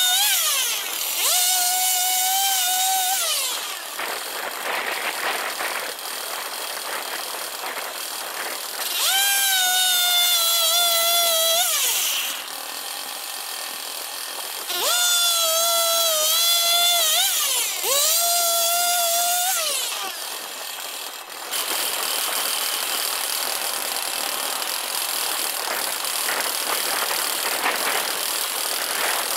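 Two-stroke chainsaw powerhead driving the M6 Turbosawmill's circular blade, its engine revving up high four times for a few seconds each, gliding up at the start and down at the end of each, with a rougher, lower running sound in between. The sound breaks off abruptly in places because the footage is sped up and cut.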